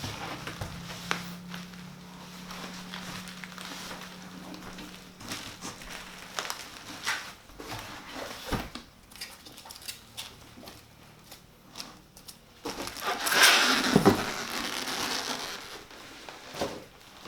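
Unboxing handling noise from a PC case's packaging: crinkling and rustling with scattered clicks and knocks, and a louder, longer rustle about thirteen seconds in.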